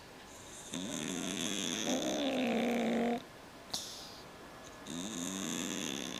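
Pet cat snoring in its sleep: two long snores a couple of seconds apart, the first cutting off abruptly, with a faint click in the pause between them.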